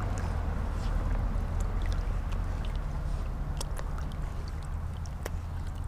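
Water sloshing around an angler's waders as he wades in shallow water, over a steady low rumble, with scattered small ticks and drips.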